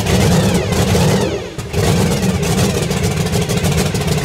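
A Funny Car's supercharged V8 running during its pit warm-up: a loud, rough, fast-firing engine note that drops briefly about a second and a half in, then picks up again.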